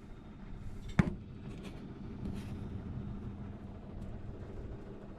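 A single sharp knock or clink about a second in, ringing briefly, over a steady low hum, with a couple of faint rustles after it.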